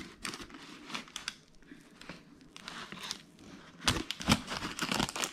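Knife cutting through a dense, crumb-topped cake, with the crumbs and the baking parchment beneath crackling and crinkling; a louder run of crackles about four seconds in.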